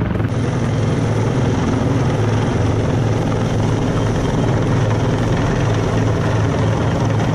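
Rescue helicopter hovering low overhead, its rotor beating steadily and loudly.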